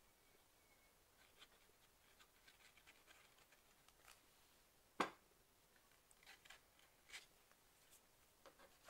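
Faint scratching and rubbing of a glue bottle's nozzle spreading glue over a paper page, with a single sharp tap about five seconds in.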